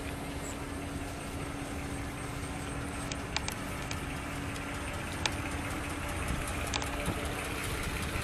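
Vehicle engine idling, with a steady hum that fades out about six seconds in and a few sharp clicks.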